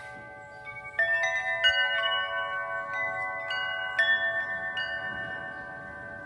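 Tubular wind chimes with long black tubes, struck by their wooden striker. Lingering tones fade until about a second in, then a cluster of fresh strikes rings several tubes at once. More strikes follow every second or so, the tones overlapping and ringing on.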